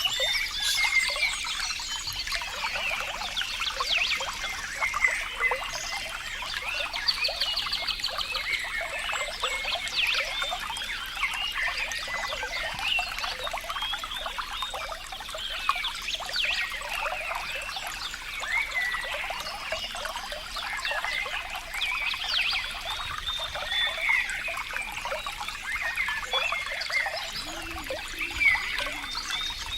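Water trickling and gurgling: a dense, steady patter of small bubbling blips.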